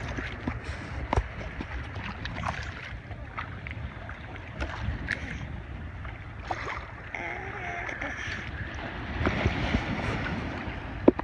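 Wind buffeting the microphone over water lapping around a kayak, with scattered small splashes and knocks throughout.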